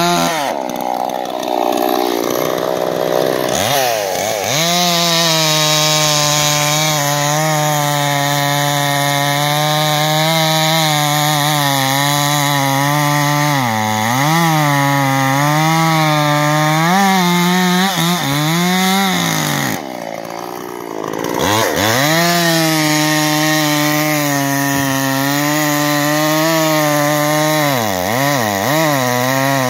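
Dolmar PS-5100S 50cc two-stroke chainsaw, with a 20-inch bar and full-chisel chain, running near full throttle while bucking a large hackberry log. Its pitch sags several times as the chain loads up in the wood and climbs back; about twenty seconds in it eases off for a moment, then revs back up.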